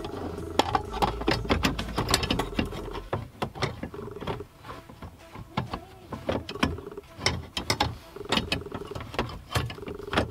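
Hand tools and metal parts clicking and clattering in an irregular run of sharp clicks, with ratchet-like ticking, while working on the car's steering column hub.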